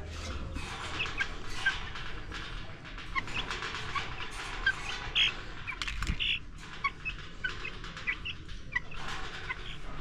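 Chickens clucking and squawking, with short high calls scattered throughout, as a hen is caught and handled.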